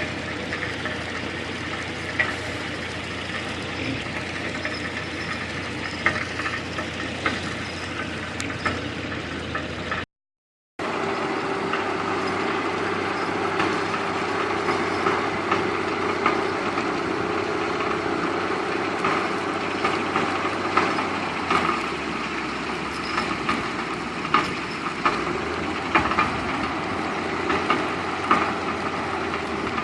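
Diesel engines of a backhoe loader and dump truck running steadily, with frequent short sharp knocks over the drone. The sound drops out completely for about half a second around ten seconds in, then resumes a little louder.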